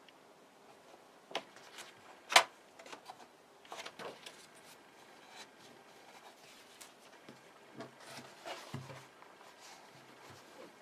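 Paper pages of a hardcover book being turned and rustling, with one sharp click about two seconds in. Near the end the cloth-covered hard cover is closed with a soft, low thump.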